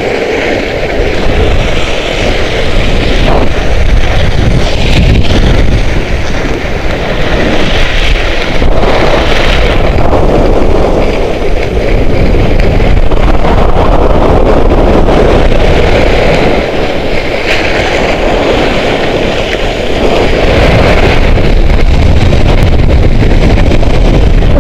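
Wind buffeting a camera microphone on a fast Skki ride down a groomed slope, with the hiss of skis sliding over packed snow underneath.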